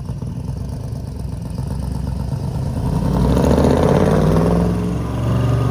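Ford Bronco's V8 exhaust, fitted with exhaust-tip turbo whistles, getting louder as the truck accelerates, loudest near the middle, dipping, then rising again near the end. The whistles add little that sounds like a turbo and are barely heard over the exhaust.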